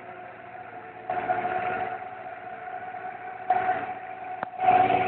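The 16 hp diesel engine driving a 50-ton hydraulic seaweed baling press runs steadily. It gets louder under load in three stretches, about a second in, near the middle and near the end, as the press ram is worked. A sharp click comes just before the last stretch.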